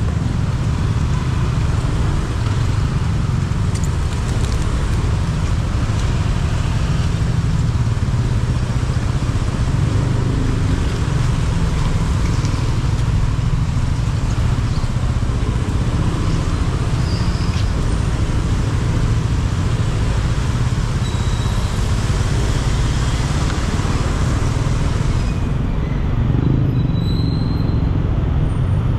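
Motorbike riding through city traffic in the rain: a steady low rumble of engine and wind under the hiss of rain and wet road. The highest part of the hiss drops away near the end.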